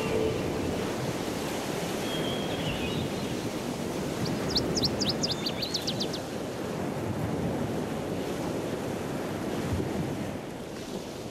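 Ocean surf washing steadily, with wind noise; a brief run of high chirps about five seconds in.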